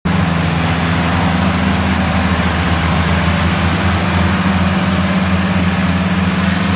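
Several diesel tractor engines running together at a steady, loud drone while the tractors pull a stuck, fully loaded trolley.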